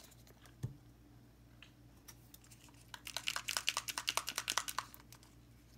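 A small bottle of alcohol ink shaken by hand, its mixing ball rattling in a quick run of sharp clicks, about ten a second for some two seconds. Before it there is a single soft thump.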